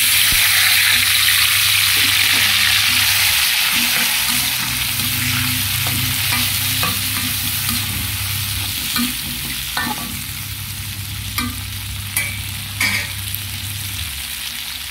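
Chopped tomatoes, chilies, shallots and garlic hitting hot oil in a wok. They start sizzling loudly at once, and the hiss slowly dies down as they fry. A metal slotted spatula stirs and scrapes against the wok with short knocks.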